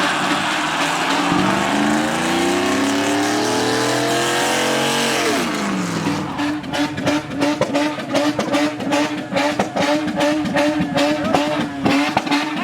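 A car engine revving hard, climbing in pitch for about five seconds and dropping sharply, then held at high revs in a rapid, stuttering pattern, with a hiss of tyres in the first half.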